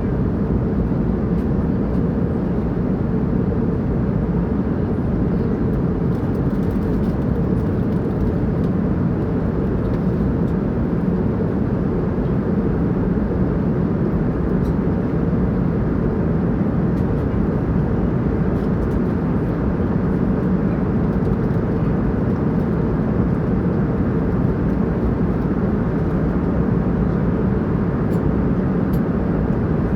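Steady, unbroken cabin noise of a jet airliner in flight: a low, even rush of engines and airflow with nothing standing out above it.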